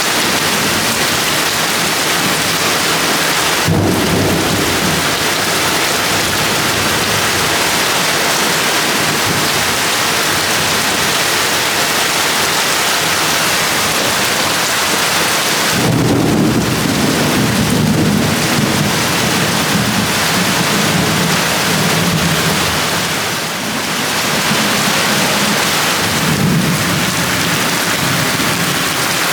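Heavy rain pouring steadily, with a short clap of thunder about four seconds in and a long rumble of thunder starting about halfway through that swells and fades over roughly ten seconds.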